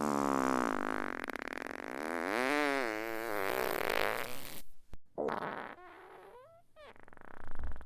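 Fart sound effects: one long fart whose pitch wavers up and down, then after a short break several shorter, higher-pitched farts, and a short low, loud one near the end.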